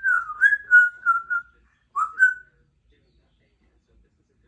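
Congo African grey parrot whistling: a quick run of short notes at about one pitch, then two more notes after a short gap.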